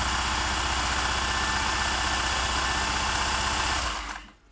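Singer 401A sewing machine stitching a decorative pattern at steady speed, the needle going up and down in a fast, even rhythm. It stops about four seconds in.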